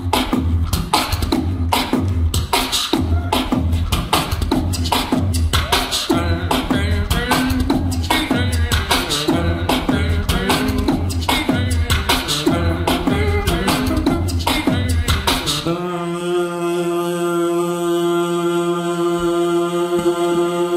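Live beatboxing built up in loops: a vocal beat with an even deep bass pulse and quick sharp percussive hits. About three-quarters of the way through the beat cuts off and a steady held vocal drone with many overtones takes over.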